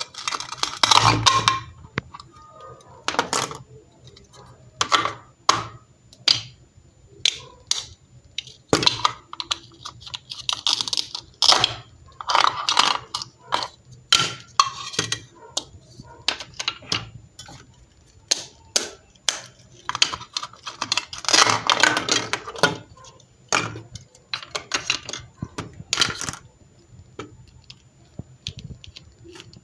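Irregular clicks, taps and rustles of small objects being handled, with a few longer scraping or rustling stretches.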